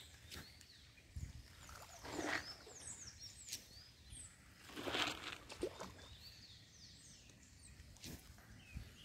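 Fish splashing at the pond surface as they strike at floating feed pellets, two short splashes about two and five seconds in. Small birds chirp faintly throughout.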